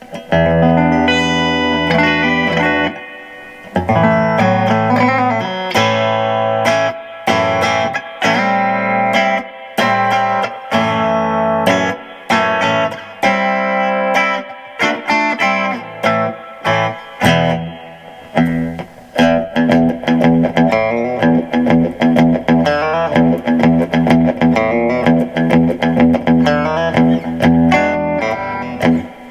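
Monoprice Indio Retro Classic Tele-style electric guitar played through an amplifier: chords and picked notes, with a short pause about three seconds in.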